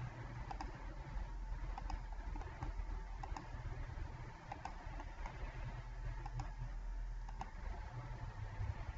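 Light clicks of a computer mouse at uneven gaps, roughly one a second, over a low steady hum.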